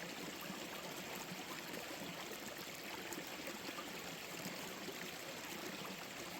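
Forest stream running over rocks: a steady rush and burble of flowing water.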